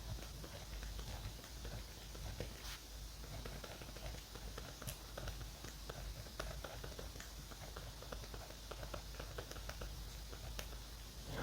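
Pen writing on notebook paper: soft, irregular scratching strokes with small taps of the nib, and a sharper click right at the end.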